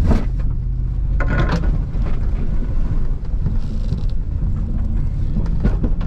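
Plow truck's engine running steadily as it drives through slush and mud, with a couple of brief knocks near the start and about a second in.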